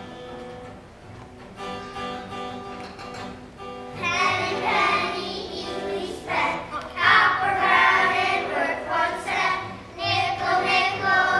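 A group of young children singing a song to guitar accompaniment. The singing gets much louder about four seconds in.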